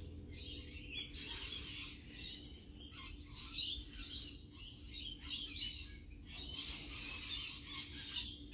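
Several wild birds chirping and singing at once, a busy stream of short, high calls overlapping, over a faint low steady hum.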